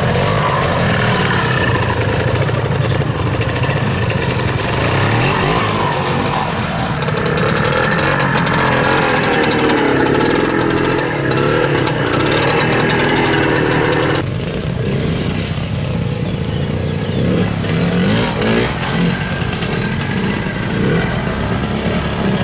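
Classic two-stroke trial motorcycles running at low speed, the engine note rising and falling as the throttle is blipped through the section. The sound changes abruptly about two thirds of the way through as another bike takes over.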